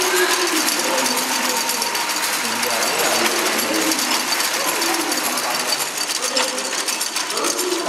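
Old hand-turned cord-braiding machine running, its bobbin carriers and gears clattering in a fast, steady run of clicks as they circle their tracks.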